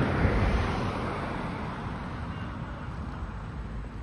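Passing road vehicle: a rushing noise that fades over the first two seconds, over a steady low rumble.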